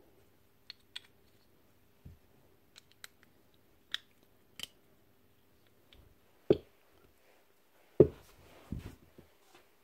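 Small metal hammer-drill parts clicking and tapping as they are handled, then a few louder knocks as parts are set down on a workbench, the loudest about eight seconds in.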